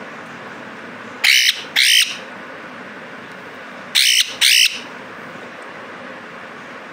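Pet parrot giving four short, harsh squawks in two pairs about three seconds apart while being hand-fed.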